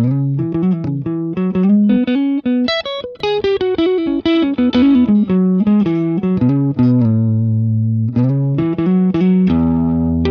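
Electric guitar, a Gretsch Players Edition Broadkaster on its neck humbucker, played through an EarthQuaker Devices Westwood overdrive into an amp. The drive is set low, with treble cut and bass raised, for a soft, warm, lightly overdriven blues or jazz tone. It plays a quick line of single notes, holds one low note near the end, then lets a chord ring out.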